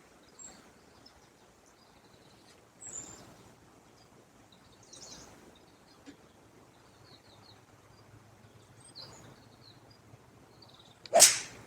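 Faint birds chirping now and then over quiet outdoor background, then near the end one sharp, loud crack of a golf club striking a ball.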